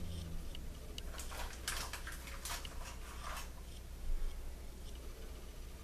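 Plastic serving spoon tapping and scraping as cooked white rice is spooned onto a plate: a few soft clicks and light scrapes in the first half, over a faint steady low hum.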